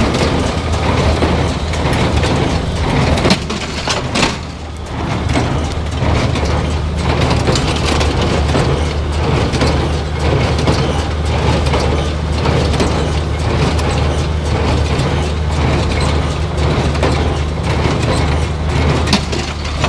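John Deere 336 square baler running behind a tractor: the machinery clatters and clicks steadily over the tractor engine's constant low hum.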